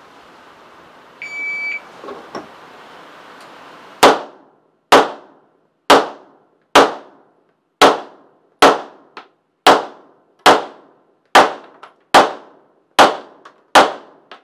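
Electronic shot-timer start beep about a second in, then a string of twelve handgun shots at a steady pace, a little under a second apart, each with a short ringing tail, and a few fainter clicks between them.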